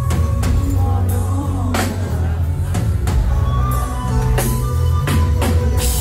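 Loud band music with drums and a heavy bass, playing continuously with a steady beat.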